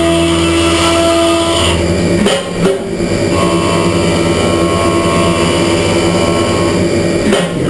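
HAAS Super Mini Mill 2 CNC milling machine making a 32 mm deep clean-up pass in billet aluminium: a steady, loud cutting whine whose tones change about two seconds in and again a little after three seconds.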